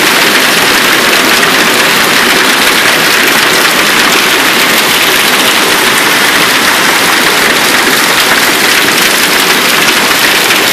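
Heavy hail pelting down, a loud, dense, unbroken clatter of hailstones striking hard surfaces.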